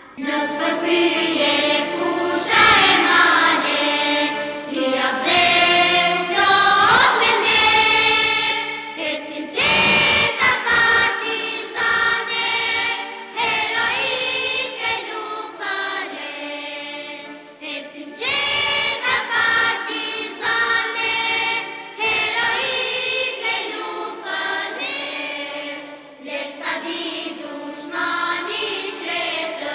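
A children's school choir singing together under a conductor, many young voices sustaining sung phrases with brief breaks between them.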